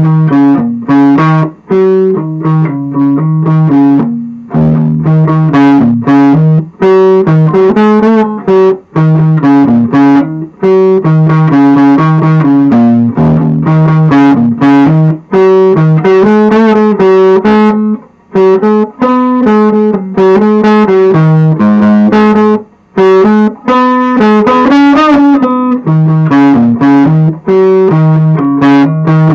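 An upgraded Squier Classic Vibe '60s electric guitar played through an amplifier and heard from the speaker cabinet. It plays a melodic line of quick picked notes, pausing briefly between phrases, with a touch of overdrive.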